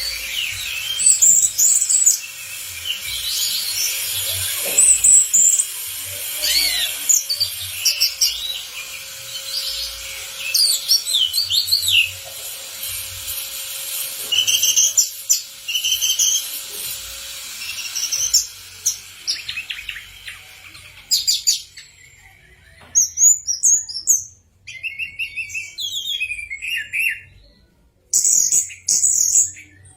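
Orange-headed thrush (anis merah) singing a long run of quick, varied whistled phrases, many of them sweeping high notes, one after another with short gaps.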